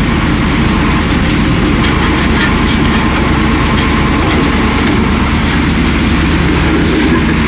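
KAMAZ truck's diesel engine running steadily, with a few faint clicks above the drone.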